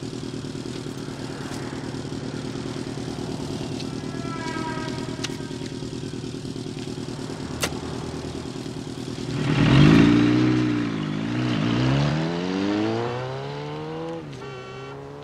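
Motorcycle engines idling steadily. About nine and a half seconds in they are revved hard, the pitch swinging down and up several times before climbing.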